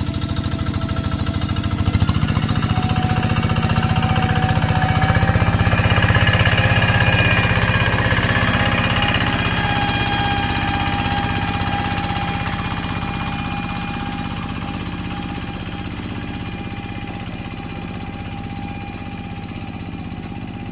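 Paddy-field tractor engine running at full throttle, getting louder about two seconds in, then slowly fading.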